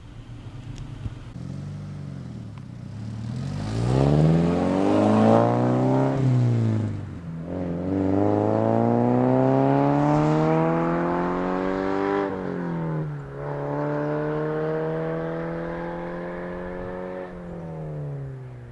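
Subaru BRZ's flat-four boxer engine breathing through an unequal-length header with no catalytic converter or muffler, accelerating. The revs climb, drop at a gear change about seven seconds in and climb again. After another shift about twelve seconds in they hold steadier and ease off near the end.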